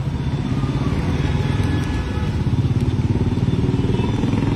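A motor vehicle engine idling close by, a steady fast low pulsing.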